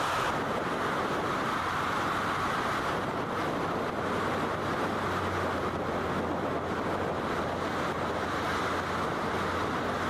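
Steady rush of river water with wind noise on the microphone, and a low steady hum underneath.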